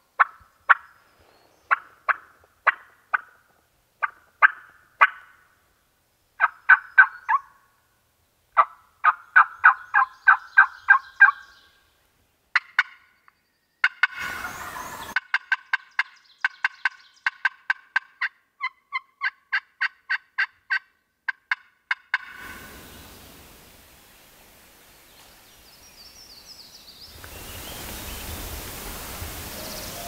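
Wild turkey calling: series of short, sharp notes, two or three a second, in bursts of several with pauses between.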